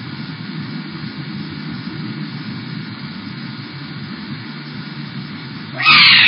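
Steady hiss of a Nest security camera's microphone, then near the end one loud meow of displeasure from a cat, falling in pitch.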